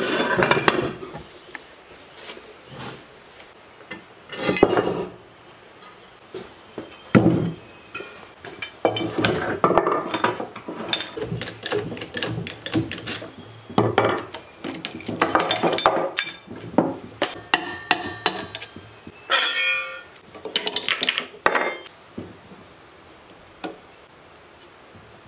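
Irregular metal knocks, clanks and scraping with hammer taps, from tools at work stripping a rusty cast-iron machine and its electric motor, including pulling the belt pulley off the motor shaft.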